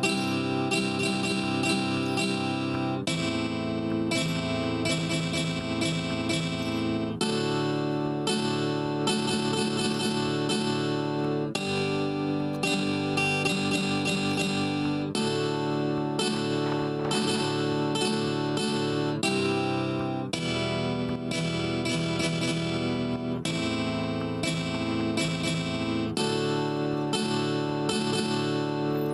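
Background music led by a plucked string instrument, with steady rapid picking and the chords changing every few seconds.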